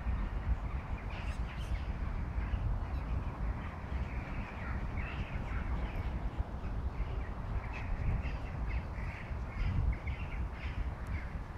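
Low, fluctuating rumble of wind on the microphone, with a run of short, repeated bird calls starting about five seconds in.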